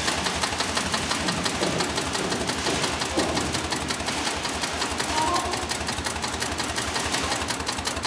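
Heavy-duty long-arm zigzag sail-making sewing machine (9366HM) stitching through thick layered sailcloth, running with a fast, even clatter of needle strokes.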